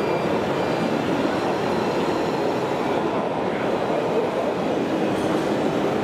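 Steady mechanical rumble of radio-controlled model construction machines running, an even noise with no clear rhythm or single loud event.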